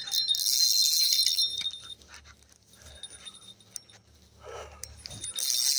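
Fishing reel's drag buzzing as a hooked fish pulls line off, in two spells: one at the start lasting under two seconds and another starting near the end. The angler is letting the big fish run to tire it before tightening the drag.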